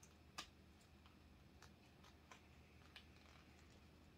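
Faint, scattered clicks and ticks of a watch band's packaging being handled and opened, with one sharper click about half a second in and a few softer ones after.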